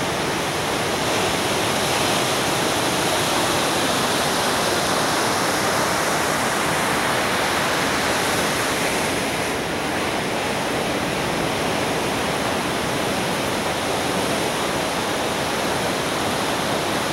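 Surf from a hurricane-driven swell breaking on the beach: a steady wash of noise, a little louder in the first half and easing slightly about halfway through.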